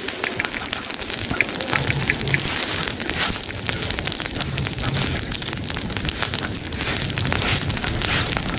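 Burning pile of dry leaves and brush, crackling and popping densely and continuously.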